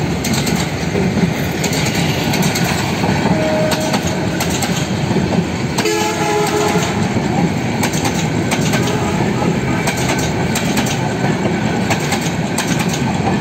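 Passenger train coaches rolling past close by: a steady loud rumble with the clickety-clack of wheels over rail joints. A brief horn-like blast sounds about six seconds in.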